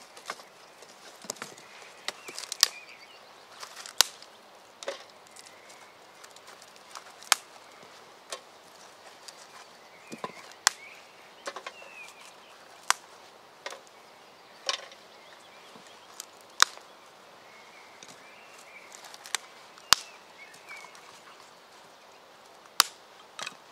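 Irregular sharp chopping strikes on wood, roughly one every one to three seconds, with faint birdsong in the background.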